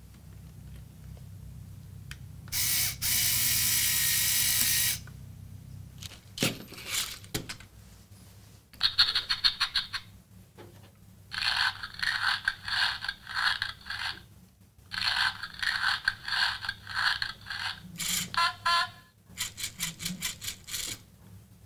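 A LEGO Mindstorms EV3 robot puppy's motors and gears running in a series of short, rattling bursts, each a second or two long, with a few sharp clicks before them. Near the start a louder steady whir lasts about two seconds.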